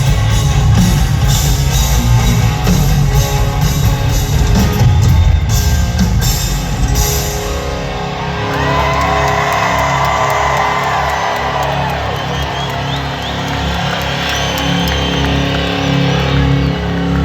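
Live country-rock band playing loudly: a drum kit with crashing cymbals and electric guitar. About eight seconds in it eases into long held, slightly bending notes over a steady bass.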